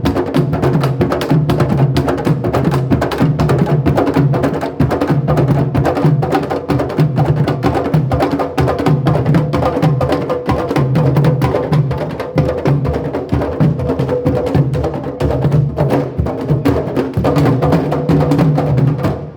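Recorded music with a busy, even percussion beat of sharp wood-block-like clicks over a repeating bass line, stopping abruptly at the very end.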